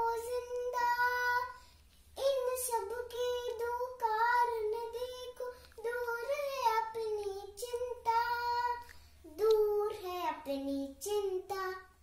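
A young girl singing a poem unaccompanied, with held notes and a short breath pause about two seconds in.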